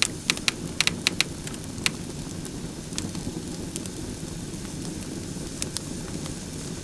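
An open fire burning: a steady low roar of flames with sharp crackles and pops, most frequent in the first two seconds.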